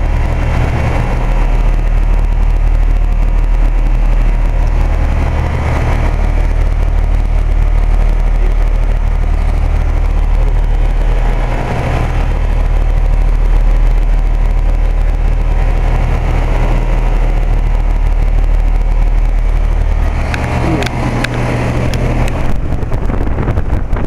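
Carrier central air-conditioner condensing unit running: a steady low hum from its Copeland scroll compressor under the rush of the condenser fan. A few light clicks come near the end.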